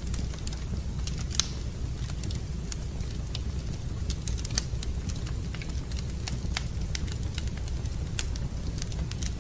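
Wood fire in a fireplace crackling, with irregular sharp pops and snaps over a steady low rumble. A louder pop comes about a second and a half in.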